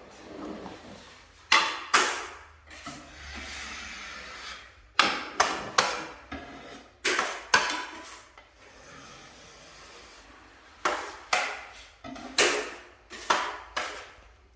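Drywall finishing tools scraping wet joint compound in an inside corner: a run of short, sharp scraping strokes in clusters, with a softer steady rub in between.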